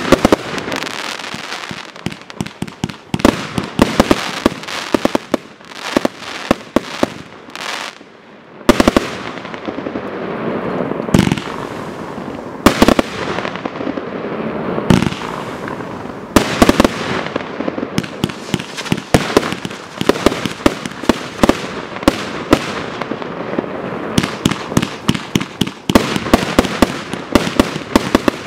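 A 235-shot consumer firework cake firing: a long run of tube launches and aerial bursts, sharp bangs coming one after another with a short lull about eight seconds in, then quicker volleys toward the end.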